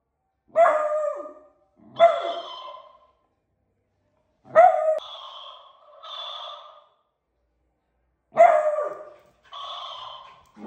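Beagle puppy barking at a talking cactus toy: four sharp barks a couple of seconds apart, with softer, buzzier bursts in between that fit the toy playing the sounds back.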